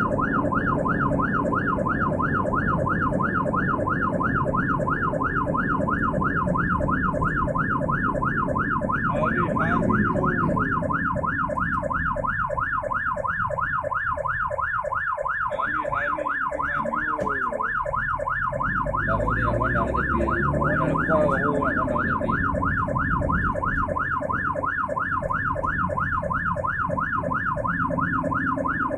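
Ambulance siren in a rapid yelp, its pitch sweeping up and down about three times a second without a break, heard from inside the ambulance over the low engine and road noise.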